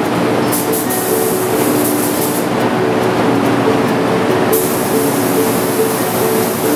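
Gravity-feed paint spray gun hissing as it sprays paint, over a steady rush of air. The hiss starts about half a second in, stops for about two seconds midway as the trigger is released, then resumes.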